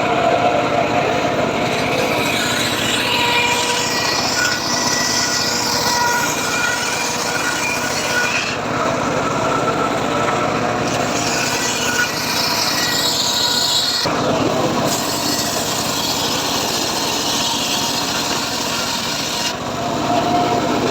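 Homemade circular saw cutting a teak log: continuous loud blade-in-wood sawing noise that shifts in tone a few times.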